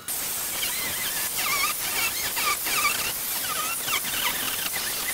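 Angle grinder cutting into a cinder-block wall: a dense grinding hiss starting at once, with a squeal that wavers up and down again and again as the disc bites into the block.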